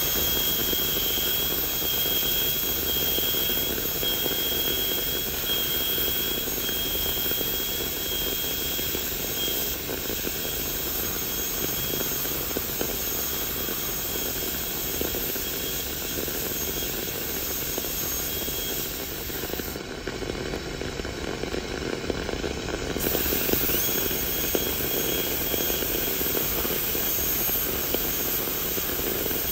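High-speed air-turbine dental handpiece running with a thin bur, cutting through the contact between two plastic typodont teeth: a steady high whine over hiss. The whine drops away for a few seconds about two-thirds of the way through, then returns near the end.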